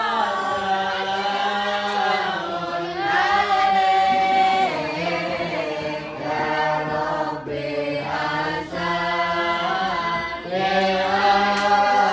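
A group of voices chanting sholawat, devotional Islamic songs in praise of the Prophet, together in long, held, wavering phrases with short breaks between them.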